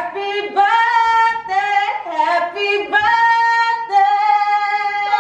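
A woman's high voice singing a slow tune in long held notes.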